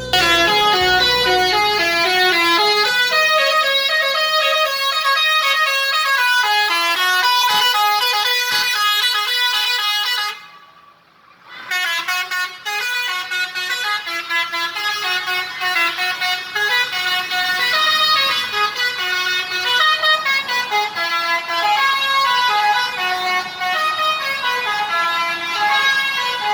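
Bus telolet horn, a multi-tone air horn, playing a fast melody of stepped notes. It breaks off for about a second roughly ten seconds in, then plays on.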